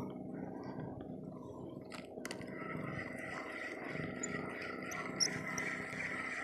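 Spinning reel being cranked to retrieve line: a couple of clicks about two seconds in, then a steady fine whir of the reel turning.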